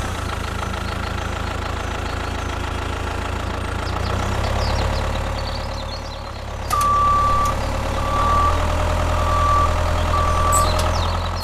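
A vehicle engine running steadily with a deep hum, getting louder about two-thirds of the way in. Then a high beep repeats four times, about once a second, like a reversing alarm.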